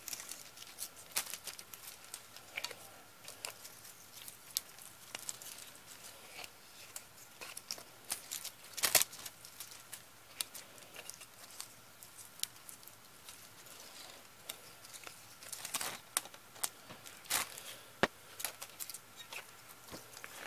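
Handling noise from a VHS cassette's plastic tape reel and shell: scattered light clicks and taps, with a sharper knock about nine seconds in and a few more around sixteen to eighteen seconds, over a faint steady high hum.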